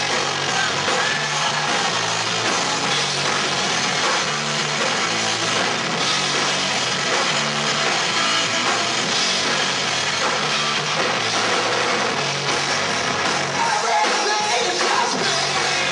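Loud rock music from a band with drum kit and electric guitar, playing steadily throughout.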